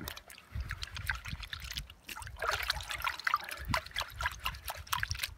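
Water sloshing and trickling as a plastic gold pan full of fine gravel is shaken side to side in a tub of water, settling the heavy material and gold to the bottom of the pan. The splashing grows busier about halfway through.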